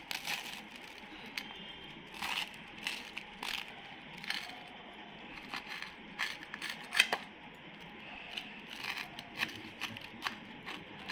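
Knife sawing through a grill-toasted bread sandwich: irregular crunches and crackles of the crisp toasted crust, with sharper clicks about seven seconds in.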